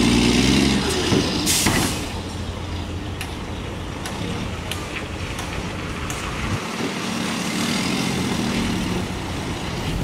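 Diesel engine of a tipper dump truck running as its raised bed comes down, with a short sharp hiss of released air a little under two seconds in. The engine picks up again near the end as the truck moves off.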